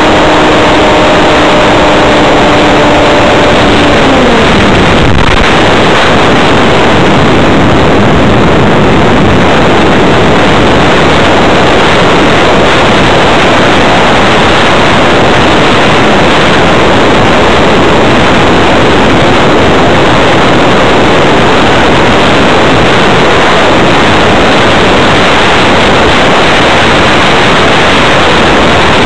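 Electric motor and propeller of a Multiplex Blizzard RC hotliner whining at a steady pitch, then winding down and stopping about four seconds in. After that, loud steady wind rush over the onboard camera's microphone as the model flies on with the motor off.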